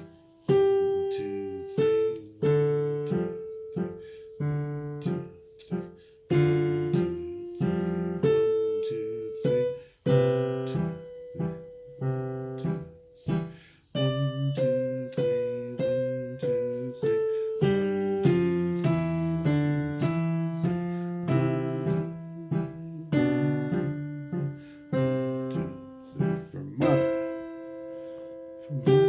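A piano played with both hands: a low left-hand part under a right-hand melody, each note struck and left to ring away, at an even pace.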